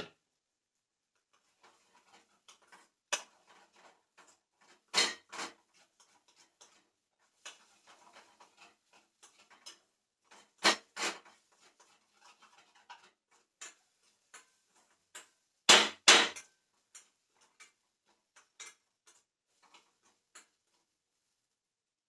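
Kitchen handling sounds: scattered clicks and knocks of utensils and containers, with louder paired knocks about 5, 11 and 16 seconds in.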